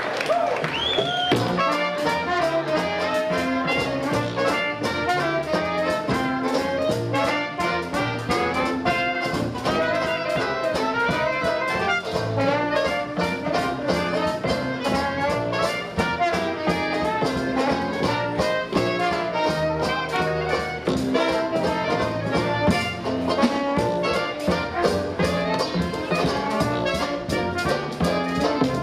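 A Dixieland jazz band playing live: horns carrying the tune over a steady, swinging drum beat.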